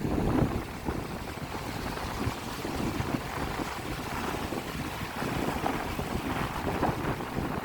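Wind over a lake with small waves washing in, the wind buffeting the microphone in uneven gusts with a low rumble.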